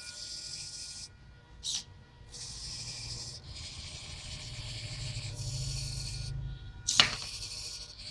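Hobby servo motors of a small three-joint robot arm buzzing in several spells as its joints move, stopping and starting, with a small click about two seconds in. About seven seconds in comes a sharp knock, the loudest sound, as the wooden block drops into the sorting bin.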